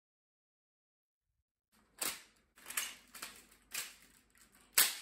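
Sharp plastic clicks from a brick-built LEGO gun's mechanism as it is handled and worked. After about a second and a half of silence come five separate clicks over about three seconds, the last the loudest.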